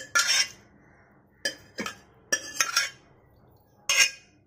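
Stainless steel ladle clinking and scraping against a pressure cooker and a steel bowl as cooked mutton is ladled out: a series of sharp metallic clinks, each ringing briefly.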